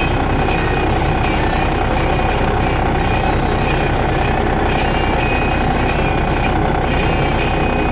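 Heavy diesel farm machinery running steadily: a constant engine drone with a steady mid-pitched whine, and short high tones coming and going.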